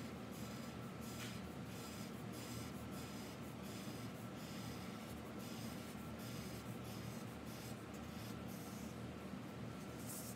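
Felt-tip marker scratching on paper in rapid back-and-forth colouring strokes, over a steady low hum.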